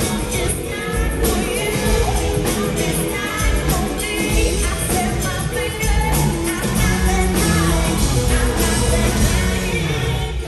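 Live pop-rock band playing with a female lead singer.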